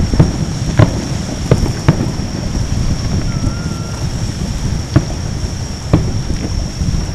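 Aerial fireworks shells bursting in a display: four sharp booms in the first two seconds, then two more about five and six seconds in, over a steady low rumble.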